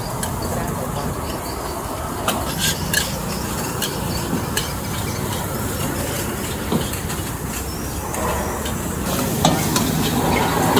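Food sizzling in a wok while a metal spatula stirs and scrapes it, with scattered sharp clinks of the spatula against the wok.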